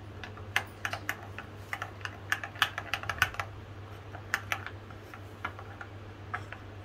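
Steel spoon clicking and scraping against a small white bowl while stirring milk powder and custard powder into cold milk, working it into a smooth paste so it won't go lumpy. The taps are light and irregular, busiest in the first three seconds and sparser after.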